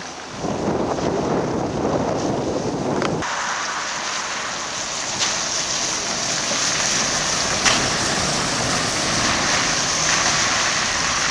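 Wind rumbling on the microphone for about three seconds. After an abrupt change, a trolleybus's tyres give a steady hiss on the wet road as it approaches and passes, with a couple of sharp clicks.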